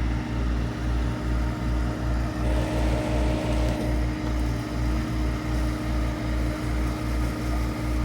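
Excavator's diesel engine running steadily, with a low throb that pulses about three times a second under a steady hum.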